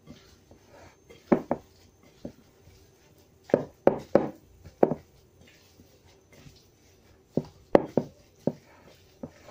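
Utensil knocking and scraping against a bowl as the ground pork meatball mixture is stirred: sharp, irregular knocks in small clusters of two to four.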